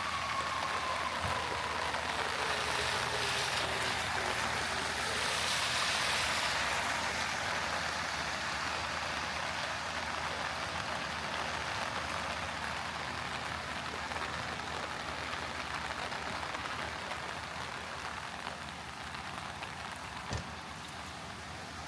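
Heavy rain hissing steadily on the street. In the first seconds a vehicle passes: a whine falling in pitch, then a swell of tyre hiss on the wet road. A single short knock comes near the end.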